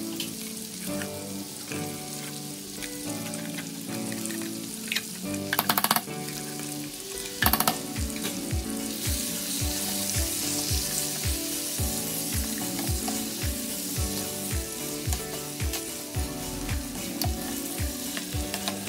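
Baby back ribs sizzling in a frying pan and being stirred with a wooden spatula, with two loud bursts of scraping about five and seven and a half seconds in. Background music with a steady beat plays under it.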